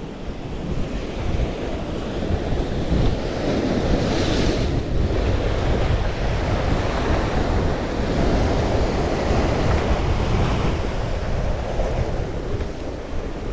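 Sea surf breaking and washing against rocks, under strong wind buffeting the microphone with a heavy rumble. The surf swells loudest about four seconds in and again near the ten-second mark.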